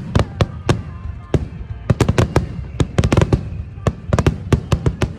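A dense barrage of aerial fireworks shells bursting, with sharp bangs coming several times a second in irregular succession, as in a finale.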